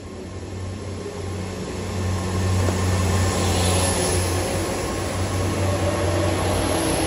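GWR Class 800 bi-mode train pulling out on its underfloor diesel engines: a steady low drone that grows louder over the first couple of seconds as the carriages pass, with a hiss brightening about three to four seconds in.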